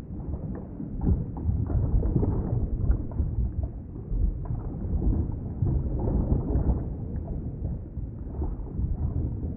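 Underwater ambience: a low, muffled rumble of moving water that swells and eases, with faint scattered ticks.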